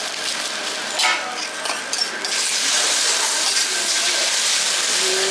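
Omelette frying in a hot pan: a steady sizzling hiss that swells about two seconds in, after a couple of light knocks.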